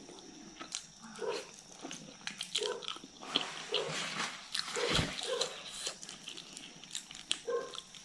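Close-up eating sounds: wet chewing, lip smacks and clicks as fish curry and rice are eaten by hand, with several short low hums scattered through.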